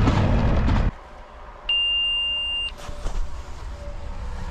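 A loud steady droning noise cuts off abruptly about a second in. Then a helmet communicator gives one high electronic beep lasting about a second as it is switched on.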